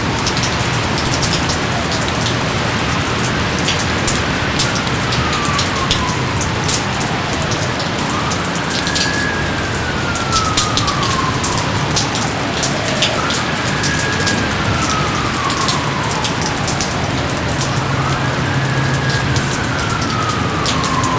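Steady rain with sharp individual drop hits. About every four to five seconds a wailing tone rises quickly and then slides slowly down, four times in all.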